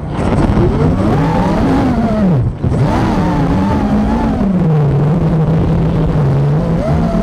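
Wizard X220 FPV racing quadcopter's electric motors and propellers whining, rising and falling in pitch with the throttle. The sound cuts back briefly about two and a half seconds in, then holds a steadier pitch.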